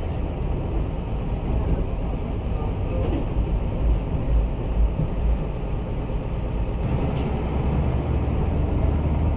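Mercedes-Benz OF1214 city bus heard from inside the cabin, its front-mounted diesel engine running with a steady low rumble that swells a little midway, and a light click about seven seconds in.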